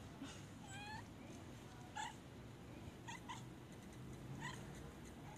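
Grey tabby-and-white cat making short chirping 'mryak' meows, about five in all, two of them in quick succession near the middle, asking for more chicken.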